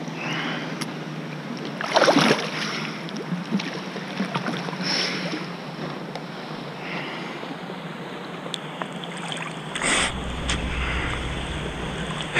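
Lake water lapping and sloshing around a wakeboarder floating at the surface, with a few louder splashes against the microphone. A low rumble comes in near the end.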